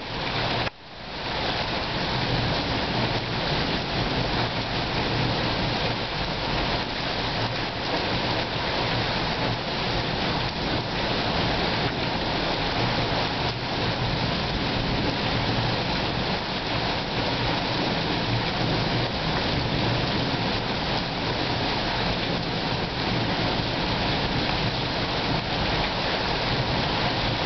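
Rain falling steadily in a thunderstorm, an even hiss, with a brief dropout in the recording just under a second in.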